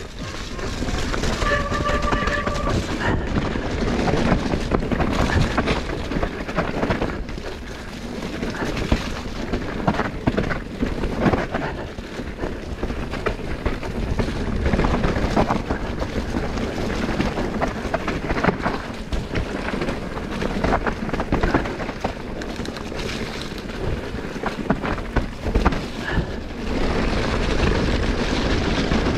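E-mountain bike descending a dirt forest singletrack at race speed: a continuous rumble of tyres on the trail, with constant rattling and knocking from the bike over bumps and roots. A short steady tone sounds about a second in.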